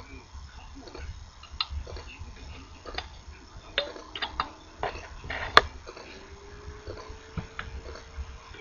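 Scattered small clicks and taps of hands and tools working on a circuit board being soldered, with one sharper click about five and a half seconds in.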